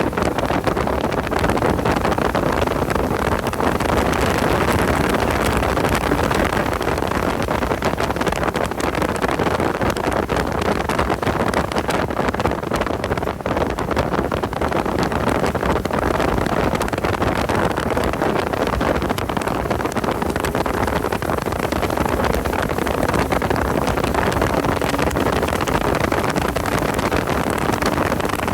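Porsche 986 Boxster driven hard at speed, its flat-six engine running under load beneath a heavy, steady rush of wind and road noise.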